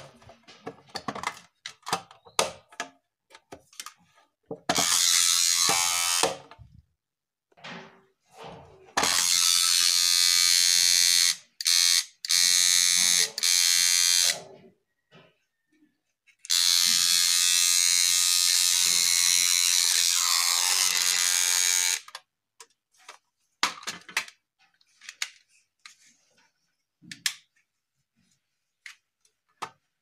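Homemade pencil-box security alarm buzzing harshly in several loud bursts, the longest about five seconds, set off as the tin lid is opened. Clicks and taps of the metal box being handled come between the bursts.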